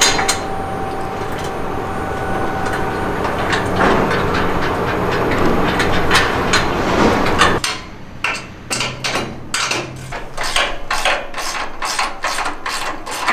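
Steady shop noise that cuts off suddenly after about seven and a half seconds, followed by a run of sharp metal clicks and knocks, a few a second, from hand tools working on the sway bar and its brackets.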